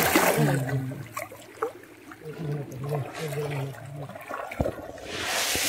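Pond water splashing, once at the start and again about five seconds in, with voices talking in between.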